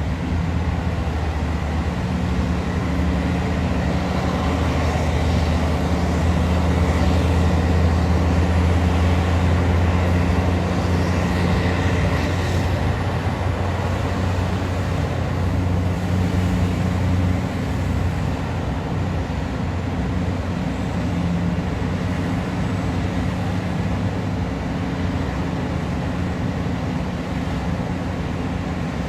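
Large diesel engine of a mining excavator running hard with a steady low drone. It eases off a little after about 17 seconds.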